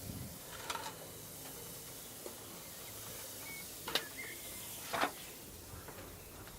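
Coal forge fire hissing steadily under its air blast, with a few short crackles about a second in and near four and five seconds.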